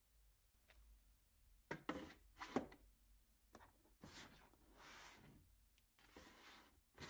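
Quiet handling sounds in a small room: a few soft knocks about two seconds in, then rubbing or swishing, and one more click near the end.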